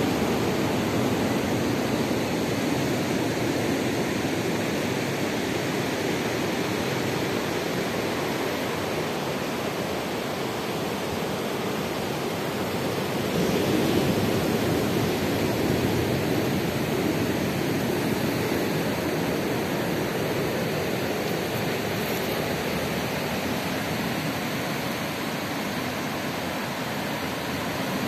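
Ocean surf breaking on a sandy beach: a steady rush of noise that swells a little about halfway through.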